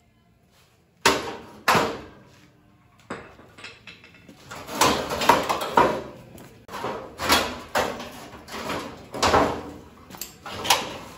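Steel frame parts being struck and shifted: two sharp metallic clanks about a second in, then from midway a run of repeated clanking and scraping strokes, roughly one or two a second.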